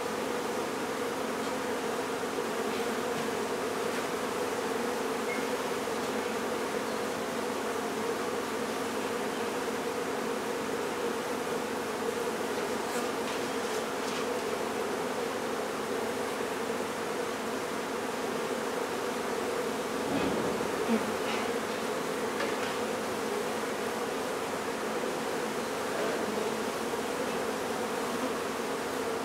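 Swarm of honey bees buzzing all around in a steady hum from a hive being cut out and moved, with a soft knock about two-thirds of the way through.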